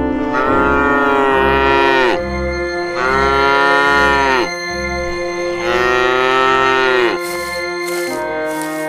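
Cow mooing three times in long calls, each dropping in pitch at its end, over background music.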